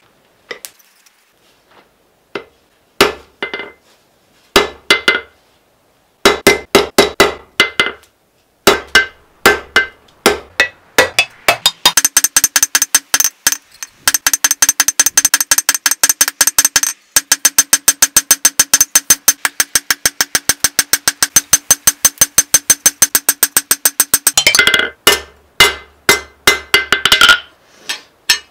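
Hammer blows on red-hot steel on an anvil, forging a seax blade. There are a few spaced, ringing strikes at first, then a fast, even run of about five strikes a second for some twelve seconds, then slower blows near the end.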